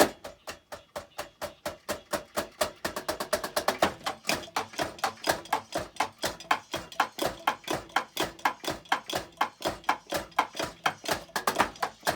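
Drums played on a Donner DED-200 electronic drum kit: a steady run of rapid, even stick hits, about five or six a second.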